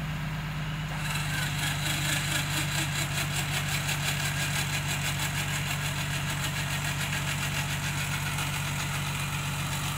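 Off-road 4x4's engine idling steadily, a little louder from about a second in, with a fast even ticking on top of the hum.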